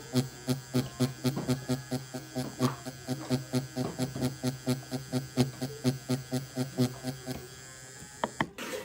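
Digital permanent-makeup machine handpiece running, a steady electric buzz as its needle works into practice skin, with a light regular pulsing about four to five times a second that stops near the end.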